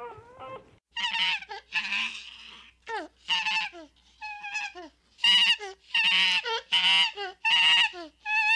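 An animal calling over and over: short, pitched calls, a few sliding steeply down in pitch, with four loud calls in a row in the second half.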